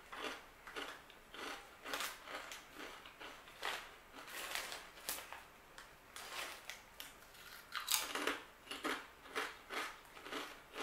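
Close-up crunching and chewing of hard, kettle-cooked barbecue potato chips: a string of irregular crisp crunches as each bite is broken up.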